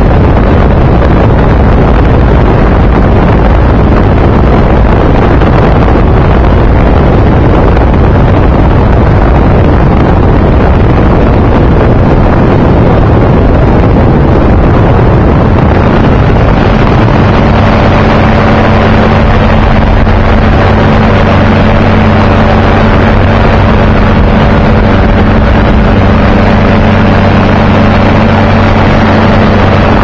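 Loud wind rush on the microphone during flight in a light aircraft, with the aircraft's engine droning at a steady pitch, its tone coming through clearly from about halfway.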